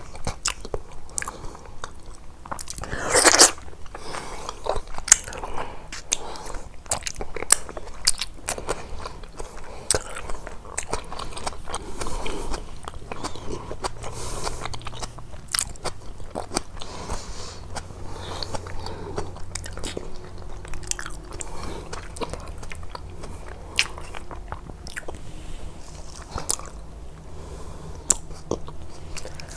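Close-miked eating sounds: biting and chewing with frequent wet clicks and crackles, and one louder crunch about three seconds in.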